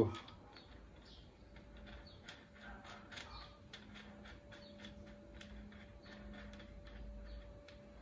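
Faint, irregular light clicks and metallic rattles as a drill chuck is turned by hand onto the threaded shaft of a washing-machine motor's rotor.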